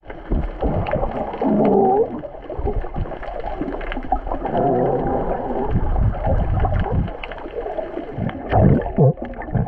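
Galapagos sea lions calling underwater: several wavering, muffled calls, the loudest about a second and a half in and again near the end, over steady water noise with scattered clicks.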